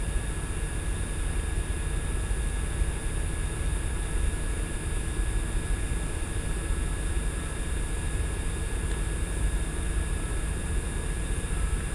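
Steady low rumble and hiss, unchanging, with a few faint steady high whines over it.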